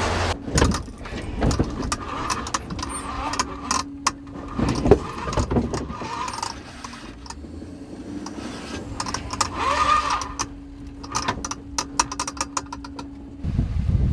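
Cab of a 2016 Ford F-750 truck rattling over a rough test surface: loose parts and the keys in the ignition jangling, with many sharp clicks and knocks. A steady hum comes in about three seconds in and stops shortly before the end.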